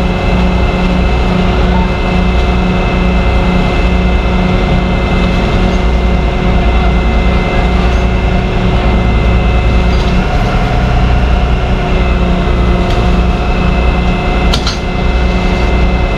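Tow truck's engine running steadily under load, with a low, even pulsing and a steady high whine from the hydraulic winch pulling a heavy RV. A short click sounds near the end.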